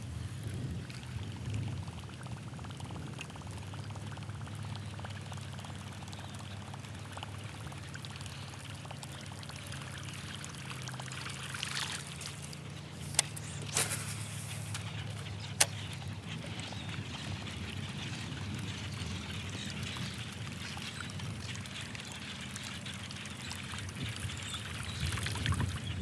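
Gentle water trickling and lapping around a kayak, over a low steady hum, with three sharp clicks about halfway through.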